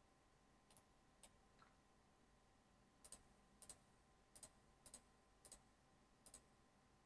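Faint computer mouse clicks, about nine spread irregularly over several seconds, some in quick pairs, against near silence.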